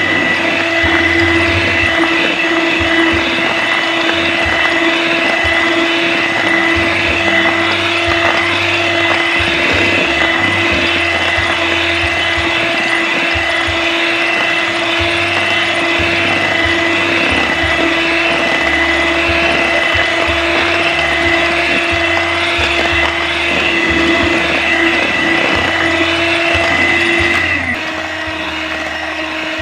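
Electric hand mixer running steadily, its beaters whirring through chilled cream and crushed Oreos in a stainless steel bowl. Near the end its pitch and loudness drop a little.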